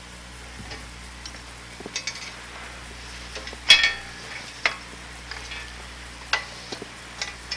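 Metal clicks and clanks from an oscilloscope chassis and its parts being handled and set down on a workbench, with one sharp clank nearly four seconds in and several lighter knocks after it, over a steady hiss and low hum.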